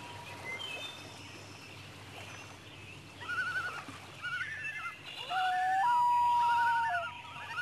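Common loons calling. A quavering tremolo comes about three seconds in, then a long wail about five seconds in that rises and jumps to a held, level note, and another tremolo near the end. A few short high bird chirps come in the first second or two.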